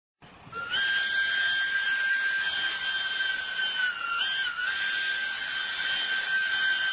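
Diesel locomotive air horn sounding one long, steady note that starts about half a second in, wavers briefly in pitch about four seconds in, and carries on over a steady hiss.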